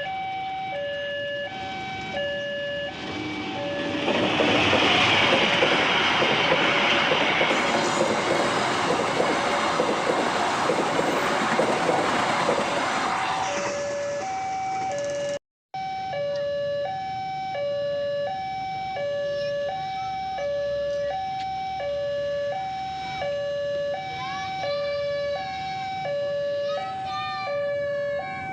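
Railway level-crossing warning alarm sounding a steady two-tone signal that alternates between a higher and a lower note about every half second. From about four seconds in until around thirteen seconds, a train passes, its loud rushing wheel-on-rail noise drowning out the alarm. After a brief cut to silence about halfway through, the alarm carries on alone.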